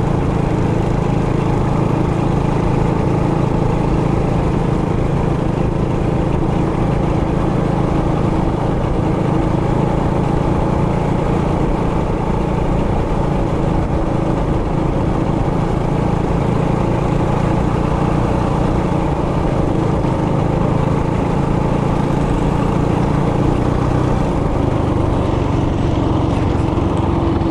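Trailmaster Hurricane 200X mini bike's four-stroke engine running steadily while riding, its note shifting slightly near the end.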